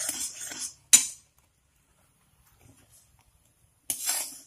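Metal spoon stirring and scraping round a steel pan of simmering milk, curd and sugar. A sharp clink of spoon on pan comes about a second in, then a pause, then another brief stretch of scraping near the end.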